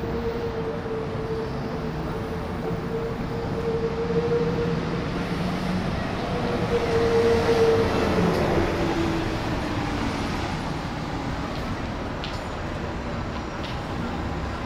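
City street traffic: a steady rumble of passing vehicles, with a high vehicle whine that holds one pitch, grows loudest about seven seconds in, then glides down in pitch over the next couple of seconds.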